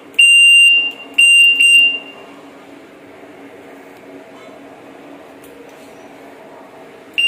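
Bicycle's handlebar-mounted electronic horn beeping: a shrill, high-pitched beep, then two quick ones about a second later, and another starts at the very end; between them only a low steady hum.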